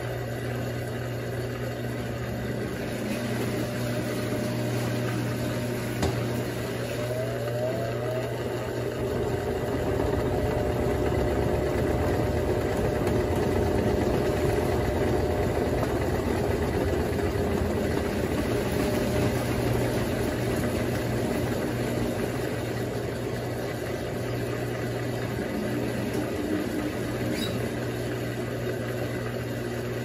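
Electrolux Turbo Economia top-loading washing machine running mid-cycle: a steady motor hum with a rougher noise that grows louder for several seconds in the middle.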